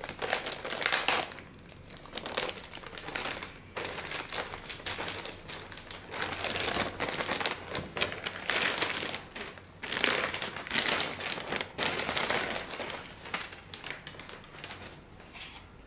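Clear plastic bag crinkling and rustling in irregular bursts as it is pulled off a car stereo head unit, loudest about a second in and again in the second half.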